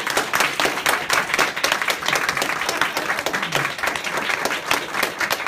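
A small audience applauding: many hands clapping quickly and irregularly in a steady, dense patter.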